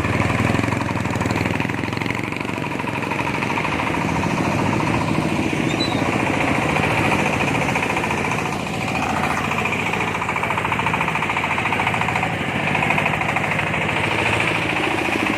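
Engine-driven corn sheller running, with a steady, rapid clatter.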